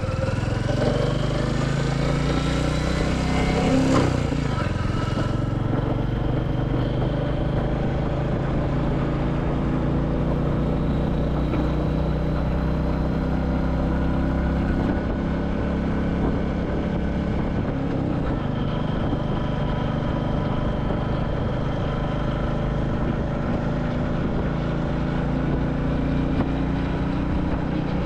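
Royal Enfield Classic 350's single-cylinder engine under way on the road, rising in pitch as it pulls for the first few seconds, then running steadily at cruising speed.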